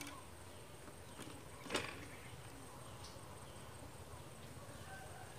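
Quiet outdoor background with a low steady rumble, broken by one sharp knock a little under two seconds in and a few fainter clicks.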